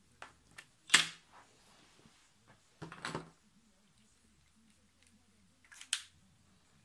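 A few knocks and clicks from objects handled on a desk, likely a pen and drawing tools set down. The loudest knock comes about a second in, another cluster around three seconds, and a last one near the end.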